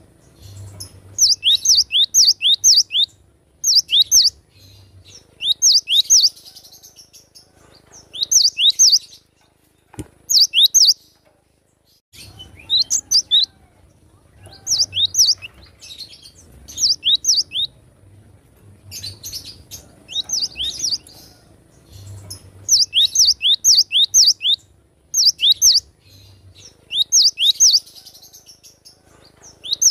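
Cinereous tit (gelatik batu) singing in loud, rapid phrases of three to six high, quickly falling whistled notes, repeated every second or two with short pauses.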